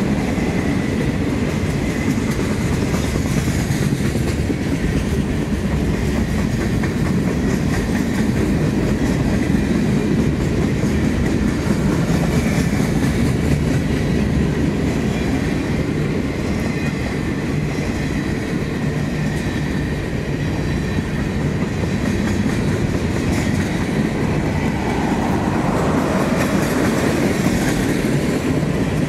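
Freight train's boxcars and covered hoppers rolling past: a steady rumble with wheels clacking over rail joints, and a faint high whine at times.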